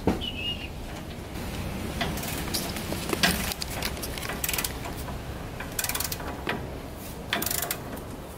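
Hand ratchet wrench clicking in short runs, with sharp knocks of steel tools on the suspension, as the nuts and bolts holding a truck's front spindle to the upper control arm are worked loose.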